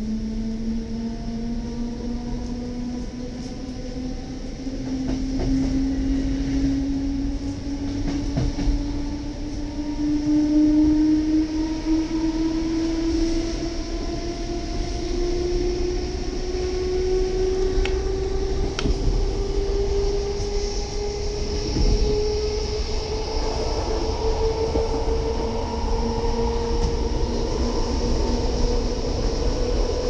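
Dutch NS Mat '64 Plan V electric multiple unit heard from inside the carriage as it accelerates. Its traction motors whine in several tones that climb slowly and steadily in pitch over a low rumble of wheels on track. A couple of sharp clicks come about midway.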